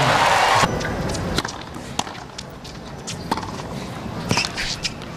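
Stadium crowd cheering at the end of a tennis point, cut off abruptly less than a second in. This is followed by quieter crowd background with scattered sharp clicks and knocks.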